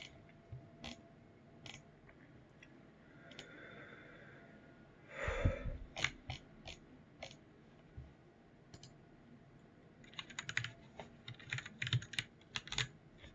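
Typing on a computer keyboard: sparse light key clicks, then a quicker run of clicks near the end, with one louder short noise about five seconds in.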